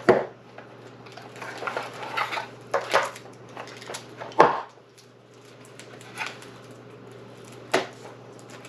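Disney Lorcana trading cards and their foil pack being handled: soft rustling and sliding, broken by a few sharp clicks and taps, the loudest about four and a half seconds in.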